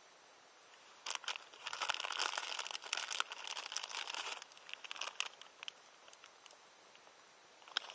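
Crinkling, crackling handling noise, dense for about three and a half seconds starting a second in, then a few scattered crackles.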